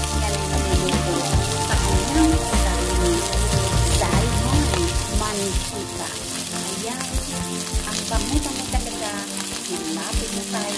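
Salmon frying in a pan in its own fat with no added oil, sizzling steadily with many small crackles and pops.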